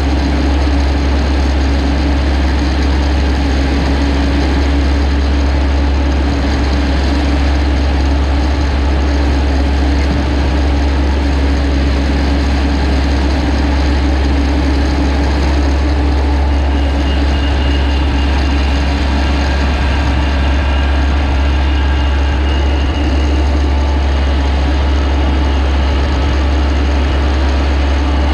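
Rice combine harvester's engine running steadily, a deep continuous hum with machinery noise over it, and a faint high whine that comes in about halfway and fades again.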